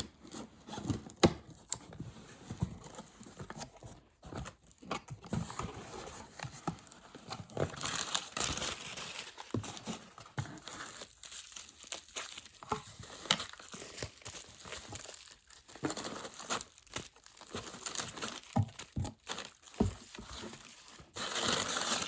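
Packaging crinkling and rustling as a boxed cordless phone set is unpacked by hand, with scattered light knocks and clicks.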